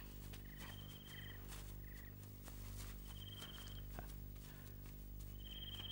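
Night insects chirping: short buzzing trills that repeat every second or two, some higher-pitched than others, over a low steady hum.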